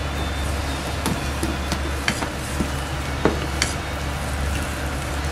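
Chopsticks stirring water into wheat flour and cornstarch in a stainless steel bowl, mixing a pancake batter, with several sharp irregular clicks as the sticks strike the metal bowl. A steady low hum runs underneath.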